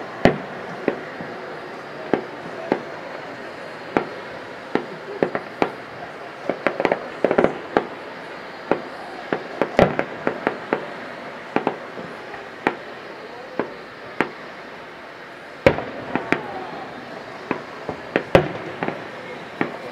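Aerial fireworks shells bursting: a string of sharp bangs at irregular intervals, coming thick around seven to ten seconds in, with a few of the loudest bangs near the end.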